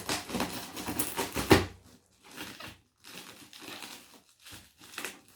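Parcel packaging being opened by hand: crinkling and tearing in irregular bursts, loudest about a second and a half in, then quieter rustling.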